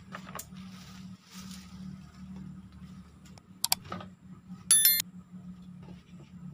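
A sharp click followed about a second later by a short, bright bell chime: the ding of a 'subscribe' bell sound effect. A steady low hum runs underneath, with soft rustling of steps on dry leaves early on.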